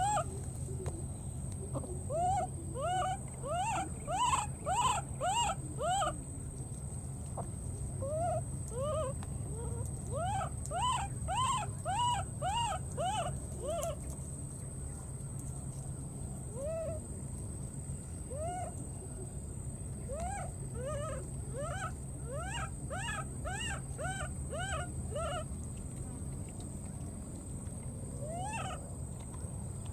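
A baby macaque crying over and over: short calls that rise and fall in pitch, several a second, in runs with pauses between them. A steady high whine and a low hum run underneath.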